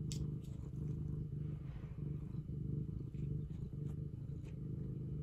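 Tabby cat purring: a steady, pulsing low rumble. A faint click sounds just after the start.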